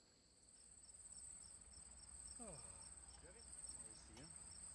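Faint crickets chirping at night: a steady high trill with a second, quieter chirp pulsing about three times a second, coming in about half a second in.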